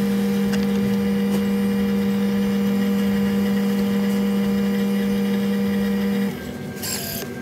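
Self-service hot chocolate machine dispensing into a paper cup, its motor humming steadily on one low tone, cutting off about six seconds in, followed by a brief hiss near the end.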